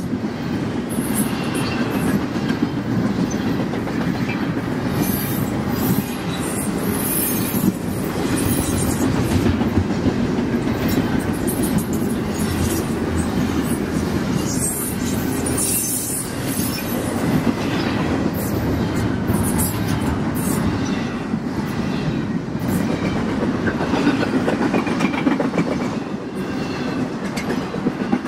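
Double-stack intermodal freight train's well cars rolling past, a steady rumble of wheels on rail with clickety-clack and repeated short high-pitched wheel squeals.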